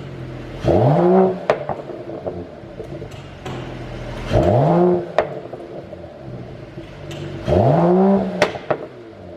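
Mercedes-AMG CLS 53's turbocharged 3.0-litre inline-six blipped three times from idle, each rev rising and falling in about a second. Each blip is followed by a few sharp exhaust pops as the revs drop, the overrun crackle of a pop-and-bang tune.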